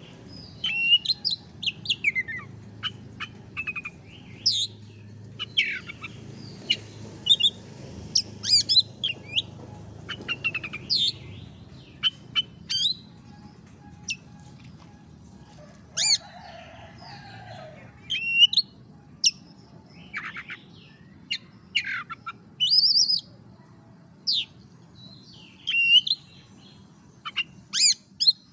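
Oriental magpie-robin singing: a varied run of short, sharp whistles, chirps and quick sweeping notes, delivered in bursts with brief pauses between phrases.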